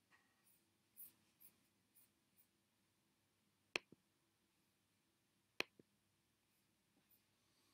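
Near silence with a few faint light ticks in the first couple of seconds, then two sharp computer mouse clicks about two seconds apart, each a quick press-and-release pair.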